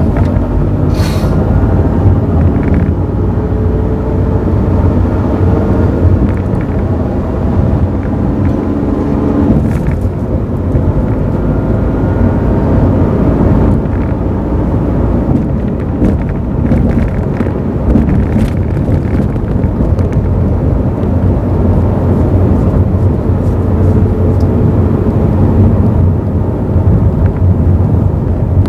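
Mazda AZ-Wagon (MJ23S) kei car with a manual gearbox running, a steady mechanical sound with several held tones that shift about ten seconds in. It is the abnormal transmission noise put up for diagnosis, in the clutch or manual gearbox.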